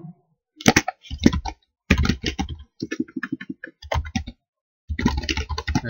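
Typing on a computer keyboard: several short runs of quick keystrokes with brief pauses between them.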